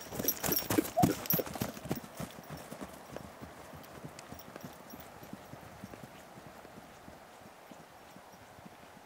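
Hoofbeats of a young horse cantering over soft paddock ground, loud at first, then fading as it and a second horse run off into the distance.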